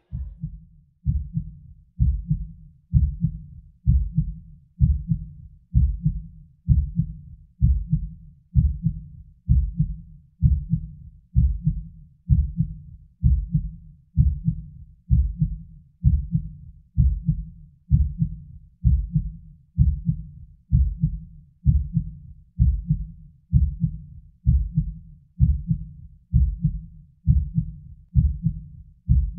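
Heartbeat sound effect: a steady, low thump repeating a little under once a second.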